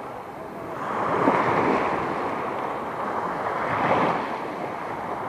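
Wind noise on the microphone over the sea, an even rushing that swells about a second in and again around four seconds.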